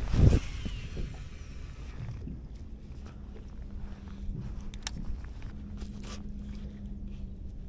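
Baitcasting rod and reel handled in a small boat: a short swish right at the start, then a whir that falls in pitch, typical of the spool spinning down after a cast. After that come a few light clicks over a faint steady hum.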